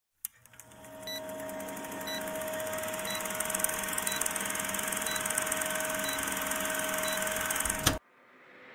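Old-film countdown sound effect: a film projector's steady whir and rapid clatter, with a short high beep once a second. It ends in a brief hit and cuts off abruptly about eight seconds in.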